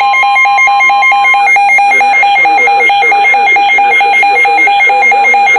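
Midland weather alert radio sounding its loud alarm for a severe thunderstorm warning: rapid beeping at about four or five beeps a second. A steady higher tone runs under it and stops about a second and a half in.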